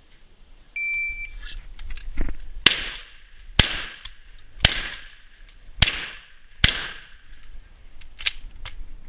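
A shot timer beeps once, about a second in, then a shotgun fires five shots roughly a second apart. Fainter clicks and knocks come between the shots and near the end.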